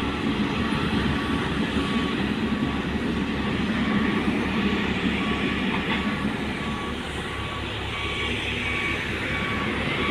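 Heavy construction machine's engine running steadily while its reversing alarm sounds a regular series of short beeps, about one a second.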